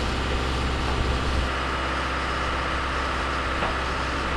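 Hydraulic system of a pipe facing machine running with a steady, even drone and a strong low hum.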